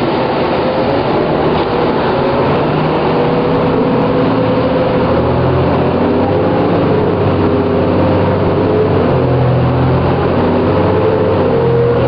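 New Flyer D40LFR transit bus under way, heard from inside: its Cummins ISL diesel drones with a low hum under a whine that rises as the bus gathers speed, drops back and climbs again near the end.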